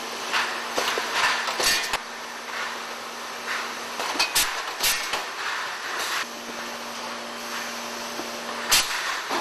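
Beer bottling and packaging line running: a steady machine hum and clatter, with scattered sharp knocks and clinks, the loudest near the end.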